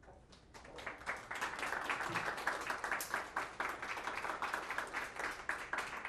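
Audience applauding at the end of a talk: a dense patter of hand claps that builds over the first second, holds steady, then thins out near the end.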